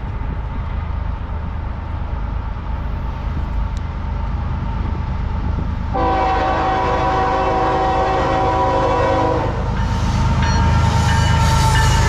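CSX EMD SD70MAC freight locomotive approaching with a low rumble, then sounding its horn in one long blast of several notes together, about three and a half seconds, that cuts off sharply. Near the end the locomotives pass close with louder engine and wheel noise.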